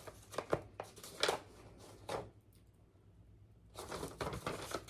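Soft rustling and light handling sounds: a few short crinkles in the first two seconds, a quiet gap, then more rustling near the end.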